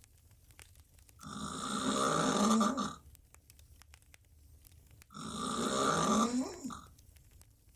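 A woman snoring loudly on her back with her mouth wide open: two long snores about four seconds apart, each lasting about two seconds, with quiet gaps between.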